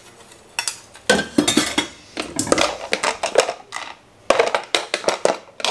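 Stainless steel bowls and strainers clinking and clattering against each other in a kitchen drawer as they are lifted and put back, with plastic containers knocking together later on.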